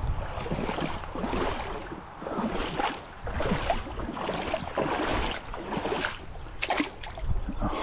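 Shallow creek water running over stones, with wind rumbling on the microphone; the sound swells and dips unevenly.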